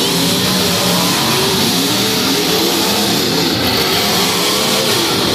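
Demolition derby cars' engines revving together in the arena, a dense mix of engine noise whose pitches rise and fall as the drivers throttle up and back off.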